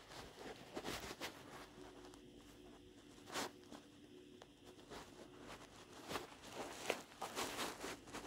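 Quiet, irregular footsteps with rustling and small knocks, with a faint steady hum in the middle.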